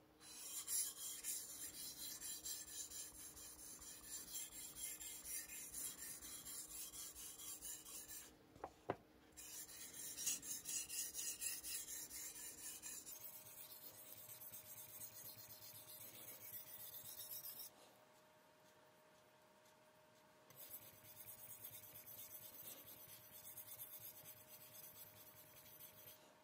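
Steel blade of a Damascus chef knife stroked back and forth across a Shapton Kuromaku 2000-grit whetstone, a rapid scraping rasp. It comes in three bouts with two short pauses. This is a light resharpening of an edge that is not badly dull.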